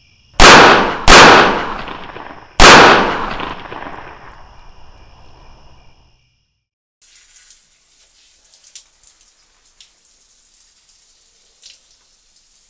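Three pistol shots, two close together and a third about a second and a half later, each dying away in a long echoing ring. Several seconds later comes the steady hiss of a shower's spray, with a few drips.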